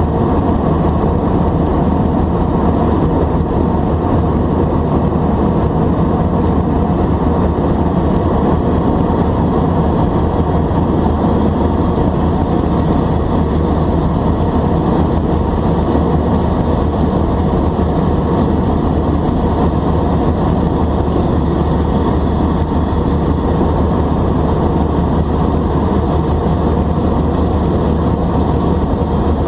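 Steady cabin noise of an Airbus A320 climbing: the drone of its CFM56 turbofan engines at climb thrust mixed with the rush of air past the fuselage, a constant low rumble that does not change.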